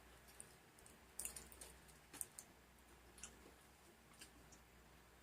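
Faint chewing with soft wet mouth clicks, a gummy jelly candy being eaten together with a chocolate-dipped snack stick.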